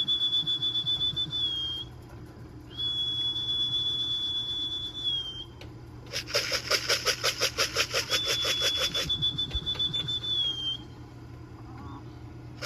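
A person whistling long, steady high notes, three times, to call racing pigeons down to the loft. Between and after the whistles comes a fast, even rattling of many short strokes.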